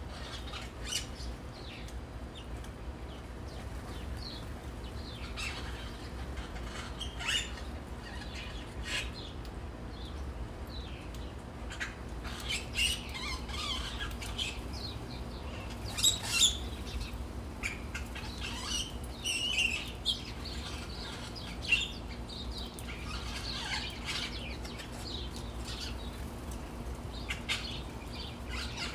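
Small birds chirping and twittering in short, scattered calls, with brief wing flutters, over a steady low hum. The calling is busiest in the middle.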